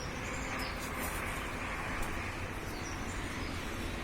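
Steady outdoor background noise with a few faint, high bird chirps, about half a second in and again after three seconds.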